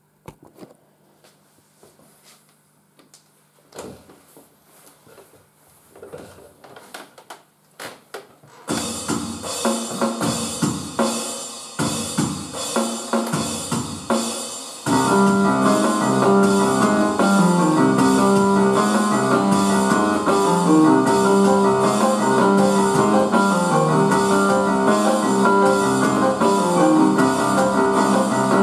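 Scattered knocks and clicks, then a Roland arranger keyboard starts playing about nine seconds in: a keyboard melody over a programmed drum beat, with fuller sustained chords and bass joining about halfway through.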